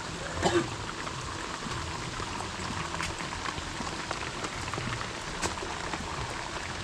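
Heavy rain falling steadily, an even hiss with many separate drops ticking through it, and one brief louder sound about half a second in.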